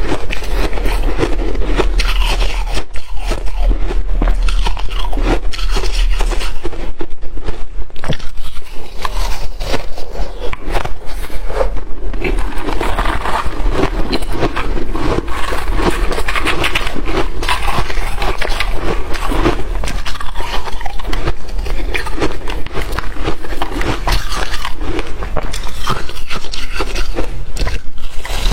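Close-miked chewing and crunching of shaved ice and freezer frost: a continuous, irregular crackle of many small crunches.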